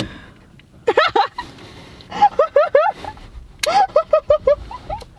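A person laughing in high-pitched giggles: three runs of short, rapid 'ha' syllables.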